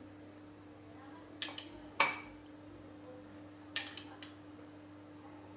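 A metal tablespoon clinking against small glass bowls while milk is spooned out: four light, sharp clinks, the loudest about two seconds in. A faint steady hum runs underneath.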